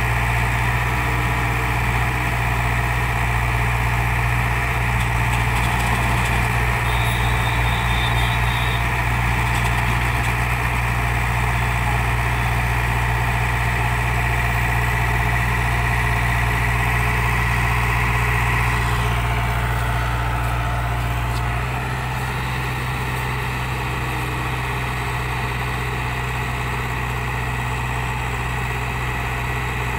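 JCB JS81 tracked excavator's diesel engine running steadily under load as the machine hauls itself up onto a lorry bed, with a high steady whine over the engine note. About two-thirds of the way through, the whine fades and the engine sound drops a little.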